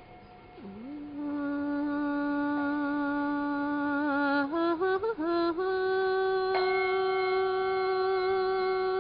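A single voice singing long, held notes in a chant-like style. It slides up into a low note and holds it for a few seconds, moves quickly through a few notes in the middle, then holds a higher note to the end.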